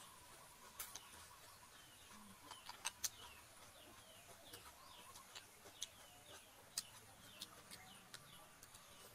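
Faint birdsong: many short, high chirps that slide downward, repeated throughout, with scattered sharp little clicks among them.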